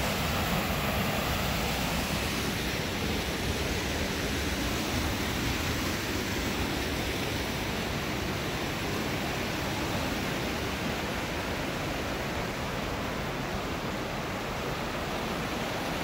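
Shallow creek cascading over sandstone rock ledges: a steady hiss of rushing water.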